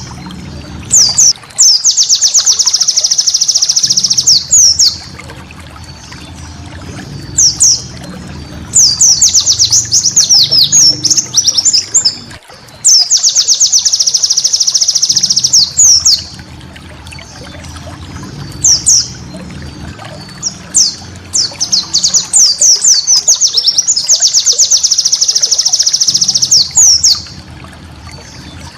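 White-eye (pleci) singing in repeated bursts of fast, high, chattering trills mixed with quick sweeping notes, each burst lasting a few seconds with short pauses between.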